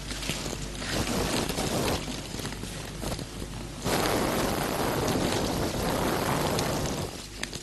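Dry paper and leaf litter rustling and crackling as a man shifts under it and pushes it off himself. It comes in two long spells, and the second, louder one starts suddenly about four seconds in.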